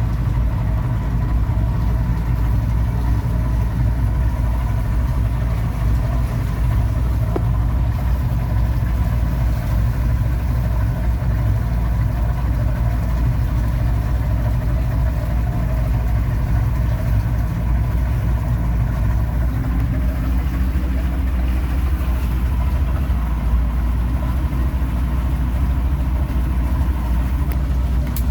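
Ship's engine running steadily: a loud, even, low drone with a faint steady hum above it.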